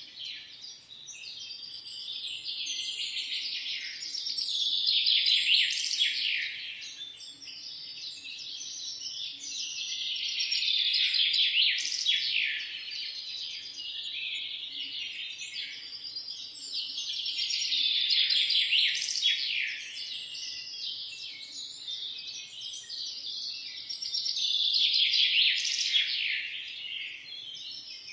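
A chorus of songbirds chirping continuously, with many quick overlapping chirps that swell louder about every seven seconds.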